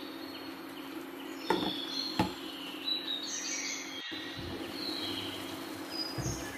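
Birds chirping repeatedly in the background over a steady low hum, with two sharp knocks of cookware on the frying pan about a second and a half and two seconds in, as the pan is stirred and covered with its glass lid.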